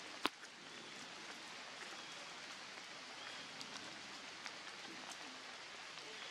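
Steady hiss of light rain falling on leaves and ground, with scattered small drop ticks. A single sharp click stands out about a quarter of a second in.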